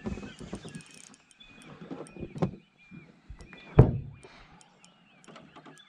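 A series of knocks and thumps on a small boat's deck and hull as someone moves about in it, the loudest a heavy thump about four seconds in.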